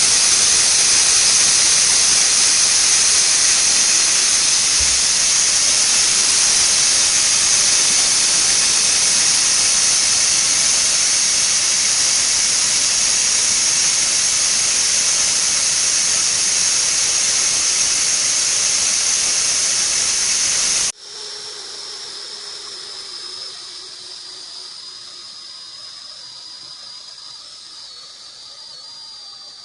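Stovetop pressure cooker whistle valve venting steam: a loud, steady, high-pitched hiss. About two-thirds of the way through it cuts off suddenly, leaving a much fainter thin high whistle that drops slightly in pitch over a weaker hiss that fades away.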